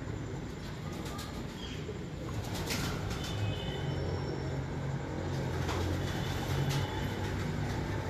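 Domestic pigeons cooing in a low, steady rumble, with a few short high chirps and a few sharp clicks over it.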